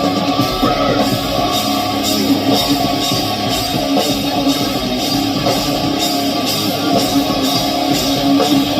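Rock band playing an instrumental passage: electric guitars over a drum kit keeping a steady beat.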